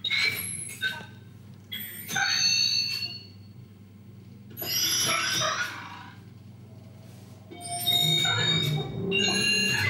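Electronic sounds from an interactive musical plant installation, set off by a hand touching the hanging plants. There are four separate phrases of bright, high tones, some sliding in pitch, each about a second long. A low pulsing rumble joins under the last one.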